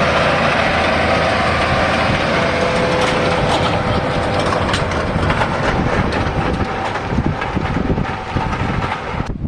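John Deere 8RX 370 four-track tractor running steadily under load as it pulls a cultivator breaking the land down for seedbed, its engine drone mixed with a dense rattling clatter. The sound cuts off suddenly just before the end.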